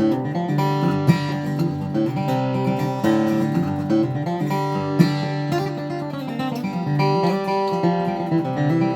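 Boucher dreadnought acoustic guitar (red spruce top, Madagascar rosewood back and sides) strung with fresh light-gauge Martin Luxe cobalt strings, played with a flatpick in a run of picked notes and strummed chords. There are hard-picked accents about a second in and about five seconds in.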